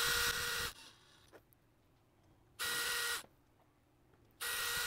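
Cordless drill-driver run in three short bursts, its motor whining at a steady pitch, driving small 4-40 machine screws into hex standoffs in a 3D-printed plastic part.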